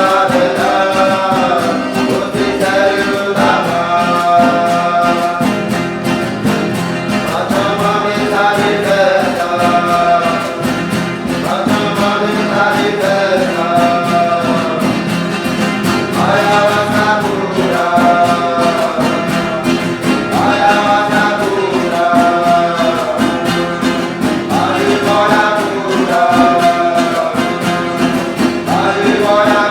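Huni Kuin chant sung by voices in repeating, falling phrases over a steady strummed string accompaniment.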